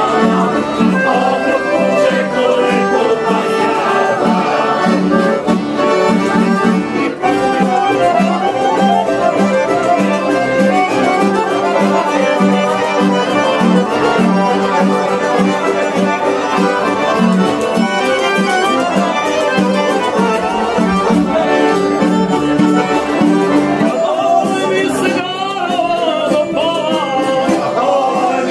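Live Croatian folk music: accordions and tamburica lutes with a guitar playing a lively tune, with men singing along. Near the end the voices come forward as a group sings the tune.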